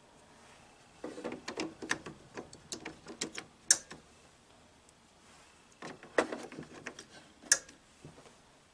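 Plastic rattling and clicking as two ink cartridges are pushed down into an HP inkjet printer's carriage, each ending in a sharp snap as it latches, about four and seven and a half seconds in.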